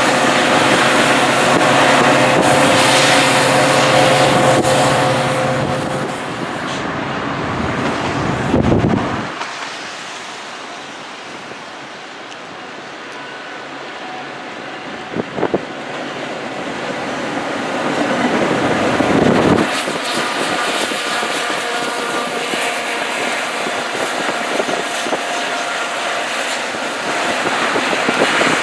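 Metra diesel locomotives running: a steady engine drone with a hum that fades after about six seconds. Two brief low rumbles follow near 9 and 19 seconds, and a train's engine drone builds again over the last several seconds as it approaches.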